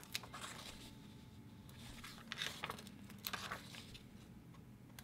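Paper planner stickers being peeled from their sheet and pressed onto a planner page: faint, scattered rustles and light taps.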